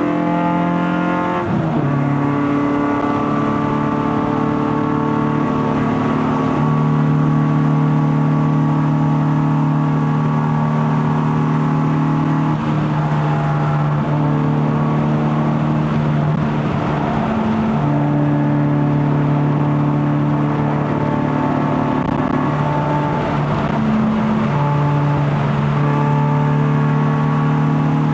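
Honda K24A four-cylinder engine heard through a straight-piped stainless steel exhaust while the car is driven. Its pitch drops about a second and a half in, like an upshift, then holds nearly steady, stepping slightly up and down at a steady cruise.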